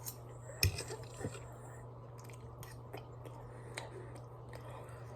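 Close-up chewing of soft, mushy pasta and chicken: wet mouth clicks and smacks, with one sharper click about half a second in, over a steady low hum.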